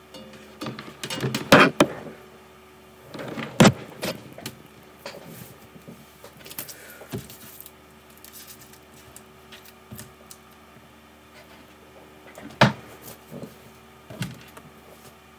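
A person moving about and settling in at a desk: irregular knocks, clatters and rustles, loudest about a second and a half in, again around three and a half seconds in, and once near the end, over a faint steady hum.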